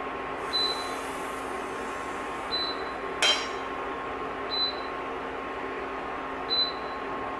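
Induction hob running with a steady hum and a short high beep about every two seconds, the signal it gives while the pan is lifted off the cooking zone. A single light clink about three seconds in.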